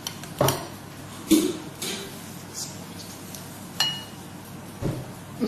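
A metal knife and fork clinking against a bowl while pasta is cut and scooped up: a few separate sharp clinks, the loudest about a second in, and one that rings briefly near four seconds in.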